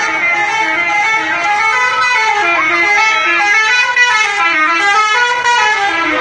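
Bus 'telolet' horn playing a tune: several horn tones sounding together, stepping up and down in pitch without a break.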